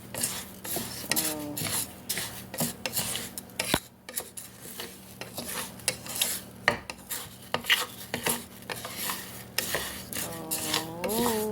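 Spoon scraping and stirring rice grains around a pot in quick, irregular strokes as the rice is toasted in oil.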